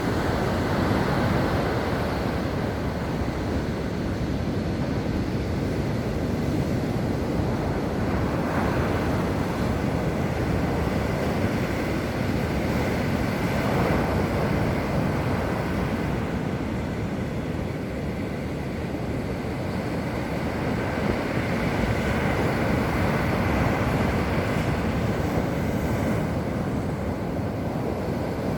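Sea surf washing in steadily, swelling and easing every few seconds, with wind on the microphone.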